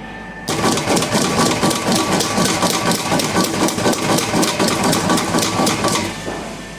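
Homemade mini power hammer running, its steel dies striking in a fast even rhythm of about five blows a second. The blows start about half a second in and stop shortly before the end.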